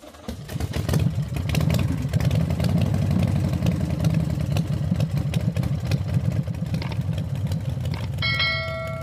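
An engine running steadily, fading out near the end, with a bright chime ringing about eight seconds in.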